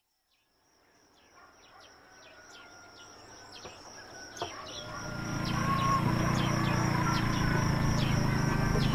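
Rural outdoor ambience fading in from silence. A steady high insect drone runs under short falling bird chirps, about two a second, over a low background rumble that swells about halfway through.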